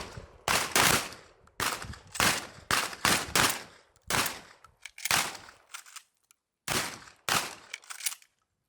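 A line of shotguns firing in an uneven, overlapping volley: a dozen or more shots, each ending in a short echo, with a brief pause about six seconds in before a last few shots.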